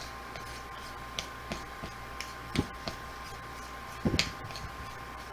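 A utensil stirring pie dough in a mixing bowl, giving scattered light clicks and taps against the bowl, with a short cluster of louder knocks about four seconds in.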